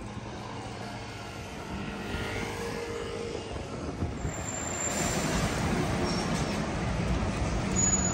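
City street traffic: a motor vehicle's engine and tyre noise swelling louder about halfway through as it draws near, with a thin high squeal twice.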